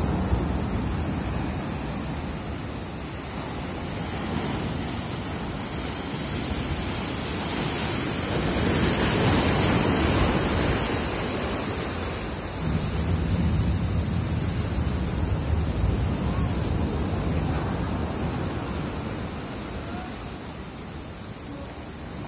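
Sea surge flooding over land: a continuous rush of churning surf and running water. It swells loudest around eight to ten seconds in and again just after twelve, then eases off near the end.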